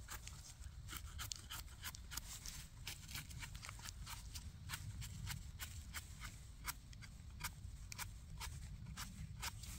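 Small knife scraping soil off the stems of freshly picked porcini mushrooms: a quick, irregular run of short, dry scrapes and clicks over a low rumble.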